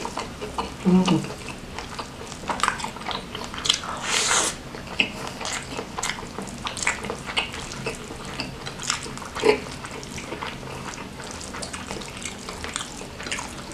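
Close-miked wet chewing and lip smacking: a steady run of short, sharp mouth clicks and smacks from eating soft beef, tendon and rice in curry gravy. Fingers squish the gravy-soaked rice on the plate.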